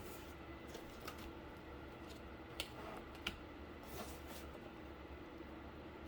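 Faint hand-handling of cardboard pieces: a few light taps and rustles, the sharpest about two and a half and three and a quarter seconds in, over a steady low hum.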